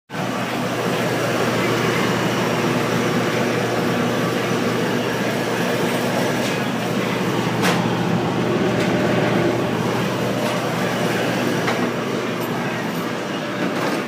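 Commercial conveyor pizza oven running: a steady, loud whir of its blowers over a low hum, with one sharp click about halfway through.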